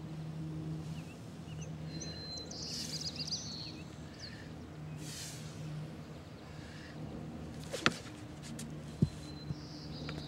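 Birds chirping over a steady low hum, then during a shot put throw a sharp smack about 8 seconds in, followed about a second later by a low thud and a smaller second thud.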